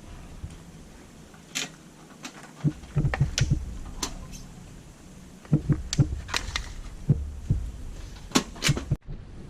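Irregular light clicks and knocks mixed with dull thumps, like things being handled or set down, stopping abruptly near the end.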